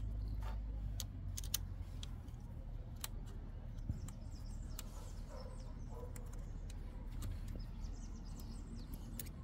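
Small metal clicks and ticks, scattered irregularly, as a hex key turns out the screws of an e-bike's ignition switch cover, over a steady low outdoor rumble.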